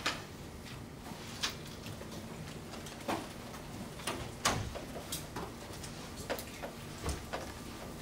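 Press photographers' camera shutters clicking at irregular intervals, a dozen or so sharp single clicks, over a steady room hum.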